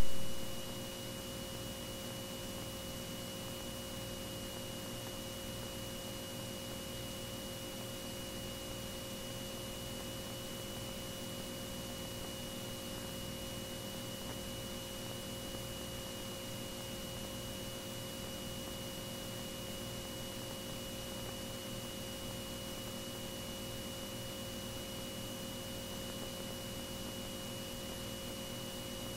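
Steady electrical hum with a thin, constant high whine, the background of an aircraft intercom audio feed between transmissions.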